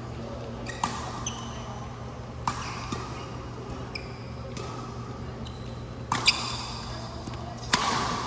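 Badminton rally: rackets striking a shuttlecock about four times, several seconds apart, with short high squeaks of court shoes on the hall floor between the hits, over a steady low hum.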